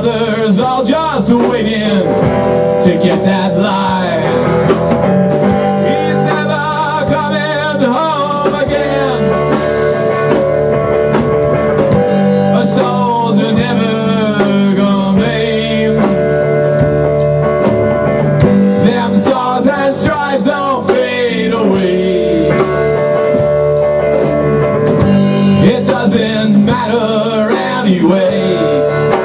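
A rock band playing live: electric guitar, electric bass and drum kit, with a man singing over them.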